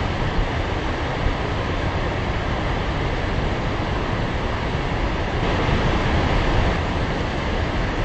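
Steady roar of a large waterfall: heavy water pouring over a rock ledge into a gorge, a constant deep rushing noise that swells slightly a little past the middle.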